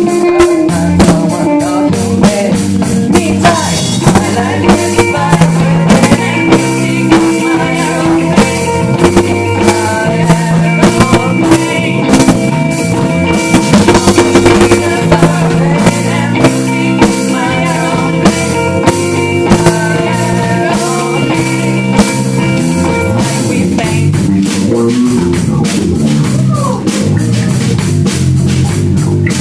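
A rock band playing: a drum kit keeping a steady beat under electric guitar and a bass line that steps from note to note.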